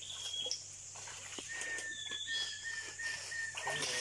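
Birds calling in swamp forest: a short, high, slightly falling whistle repeated about once a second, and from about a second and a half in a rapid series of evenly spaced notes, about four a second. A few faint knocks sound under the calls.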